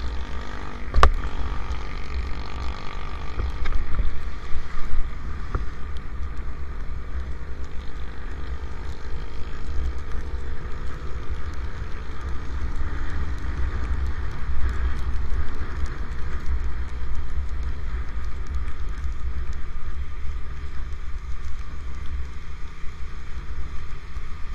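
Riding noise of a motorcycle on a wet road in light rain: wind buffeting the microphone in a steady, flickering low rumble over an even hiss of road and traffic. A sharp click about a second in.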